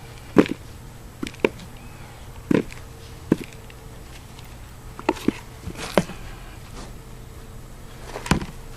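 Potatoes being dug out of a big pot of soil by hand: a scattering of irregular sharp knocks and scrapes.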